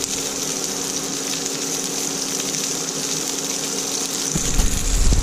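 Butter sizzling in a frying pan as asparagus spears sauté, a steady hiss over a constant low hum. A brief deep rumble comes near the end.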